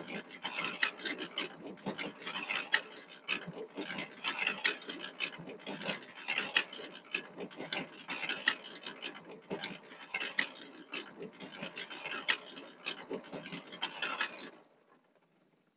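Electric concrete mixer converted into a rug washer, its drum turning a load of three rugs in soapy water: a steady churning, sloshing noise with many quick clicks and knocks. It stops suddenly near the end.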